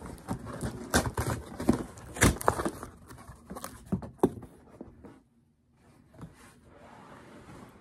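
Cardboard shipping box being handled and opened: flaps and packing rustling, with a string of sharp knocks and taps. About five seconds in the sound drops out almost completely, and only faint rustling follows.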